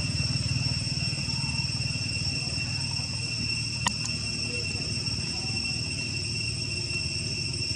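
Insects droning steadily in one high, unbroken tone, over a low rumble. A single short click about four seconds in.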